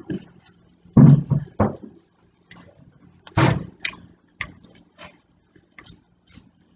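Eating at the table: a metal fork clicking and scraping on a plate, with a few short, low mouth sounds about a second in.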